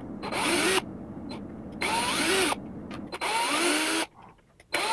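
Black+Decker cordless drill/driver running in four short bursts, about a second each, backing the last screws out of a Traxxas Stampede's plastic front differential housing.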